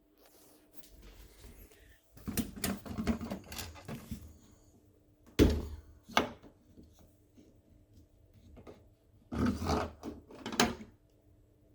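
Plastic clatter, knocks and rubbing from the drying lint filter of an AQUA AQW-DX12M drum washer-dryer being handled and opened. The sounds come in a cluster of knocks, then a sharp knock about five seconds in, then another burst near the end, over a faint steady hum.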